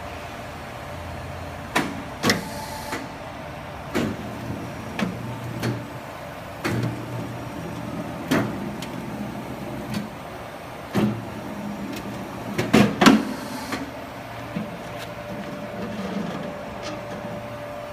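HCH1550 duct seam closer running with a steady hum, under irregular metallic clanks and bangs of galvanized sheet-metal duct being worked as its seam is closed. The loudest cluster of bangs comes about two-thirds of the way in.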